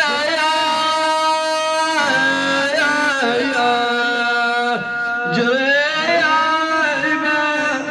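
A man singing a Shia mourning lament (na'i) in a sad voice. He holds long drawn-out notes that waver and turn, with a brief break about five seconds in.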